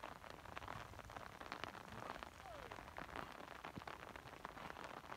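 Light rain pattering: a dense, irregular run of small drops close to the microphone.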